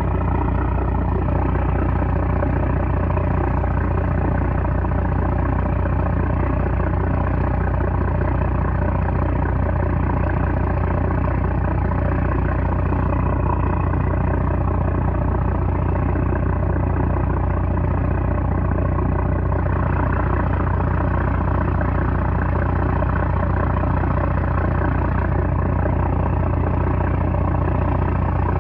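The 330 hp engine of a small trawler running steadily at an even speed, with a strong low drone.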